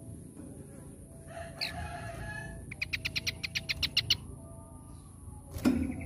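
Caged scaly-crowned babbler calling: a short call with falling glides, then a fast run of about a dozen sharp notes at roughly nine a second. Near the end comes one loud knock as the bird hops off its perch in the cage.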